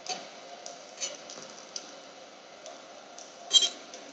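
A chef's knife tapping and scraping lightly against a ceramic plate while slicing cooked steak, with one sharper, ringing metal clink about three and a half seconds in.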